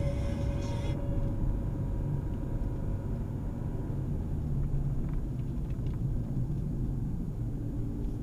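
Steady low rumble of a motor vehicle, with a few faint ticks near the middle.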